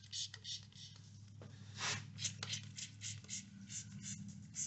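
Hand trigger spray bottle of soapy water squirting into honed motorcycle cylinder bores, a rapid series of about a dozen short hissing squirts, washing out the honing grit before assembly. A faint steady low hum runs underneath.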